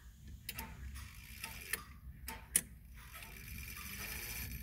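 Grandfather clock movement ticking and clicking at a low level, with scattered sharp clicks of its chime mechanism; near the end a faint mechanical whir builds as the chime train begins to run.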